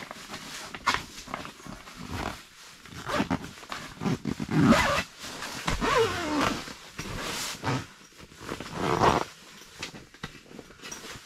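Cot being worked into its heavy canvas carry bag and zipped shut: canvas rustling and scraping in irregular bursts, with rasping zipper pulls.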